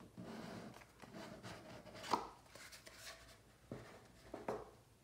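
The snug lid of a small paperboard gift box being slid off, a soft rubbing hiss in the first second, followed by a few light taps and knocks as the box, lid and tray are handled.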